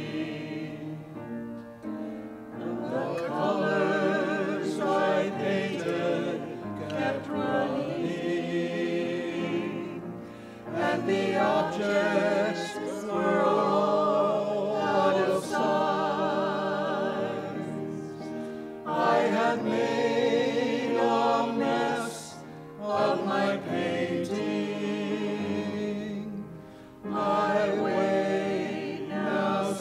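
Small church choir of men's and women's voices singing an anthem in long, wavering sung phrases, with brief breaks between phrases about a third of the way in, near two-thirds and shortly before the end.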